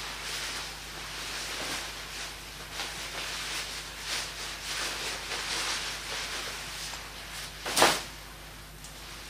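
Wood-stove fire with a nylon jacket burning in it: a steady hiss with scattered small crackles, and one much louder sharp crack near the end.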